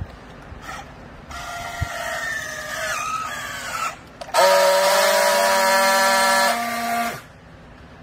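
Battery-powered handheld strapping tool working on a plastic bale strap. First comes a wavering motor whine that sinks in pitch as it pulls the strap tight. After a short pause there is a louder, steady buzz for about three seconds while it friction-welds the strap's seal, and then it stops abruptly.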